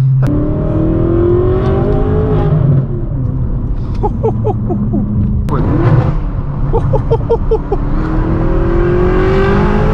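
Tuned twin-turbo V8 of a BMW M6 Gran Coupe with a straight-piped exhaust and catless downpipes, pulling hard under acceleration. The engine note climbs in pitch three times, falling away between pulls, and rapid exhaust pops and crackles come in two short bursts between them.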